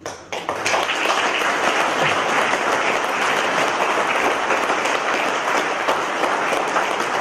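Audience applauding. The clapping breaks out abruptly, fills out within the first half second, and then holds steady.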